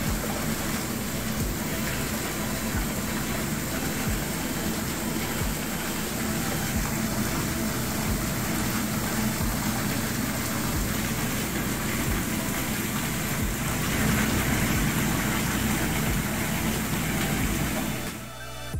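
Whirlpool jetted bathtub running: the jet pump's steady hum under the churning, bubbling water.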